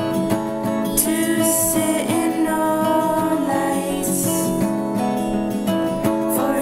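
A song: strummed acoustic guitar with a voice singing.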